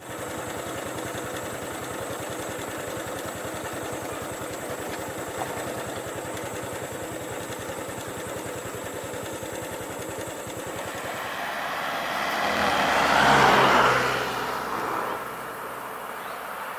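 A motor vehicle's engine running steadily at low revs, with a thin steady high whine over it. About twelve seconds in, a vehicle comes close and passes; it is loudest about a second and a half later and fades within a couple of seconds.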